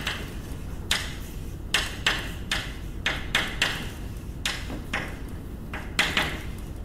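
Chalk writing on a blackboard: a string of irregular sharp taps and short scratches as the letters are stroked out.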